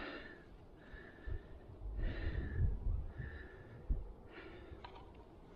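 A person breathing close to the microphone, about five short breaths roughly a second apart, over a low rumble.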